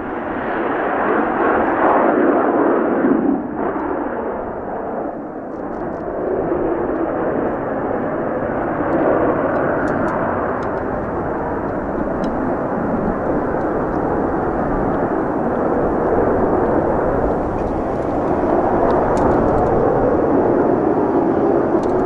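The twin General Electric J79 turbojets of an F-4EJ Kai Phantom II climbing away after takeoff: a loud, continuous jet roar that stays loud throughout, dipping briefly about three and a half seconds in.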